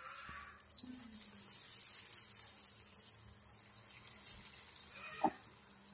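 Sev-coated aloo paneer kebabs deep-frying in hot oil in a kadhai, a steady, fairly quiet sizzle of bubbling oil. A brief, louder sound cuts in near the end.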